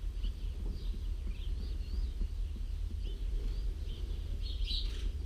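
Small birds chirping again and again, a little louder near the end, over a steady low rumble.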